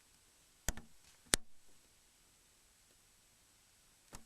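Snap clips of a Nokia E65's housing clicking as they are unlocked with a pry tool: two sharp clicks about a second in and a third near the end.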